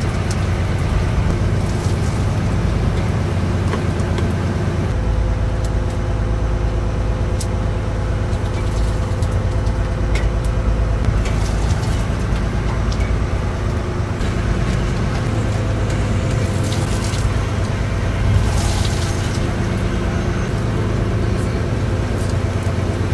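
Fishing boat's engine running steadily at sea, a low, even drone that holds one pitch throughout.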